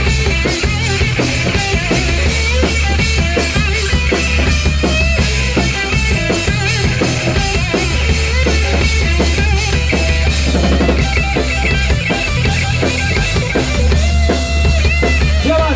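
Hard rock band playing live and loud: drum kit and bass guitar under an electric guitar lead with wavering, bending notes, and no singing.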